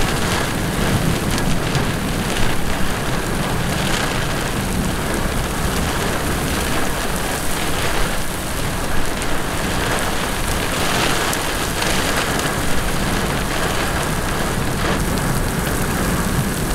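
Heavy thunderstorm rain pouring steadily onto a road and grass, with gusty storm wind.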